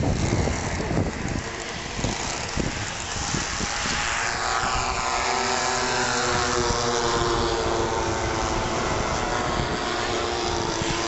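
Four engines of a large radio-controlled scale model Avro Lancaster running as it lands and rolls along a grass strip. The engine note drops in pitch about four to five seconds in as the model passes.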